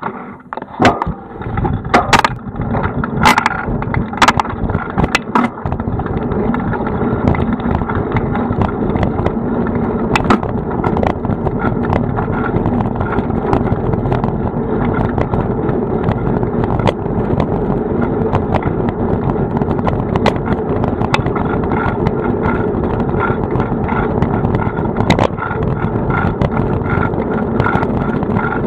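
Riding noise on a bicycle-mounted action camera: steady wind on the microphone and tyre rumble, with a few sharp knocks in the first five seconds before the ride settles in.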